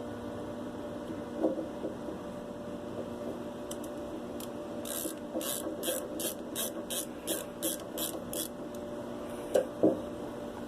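Small metal parts and hand tools being handled at a workbench: a light knock near the start, then a run of about a dozen short, hissy scraping strokes, roughly three a second, and another light knock near the end, over a steady low hum.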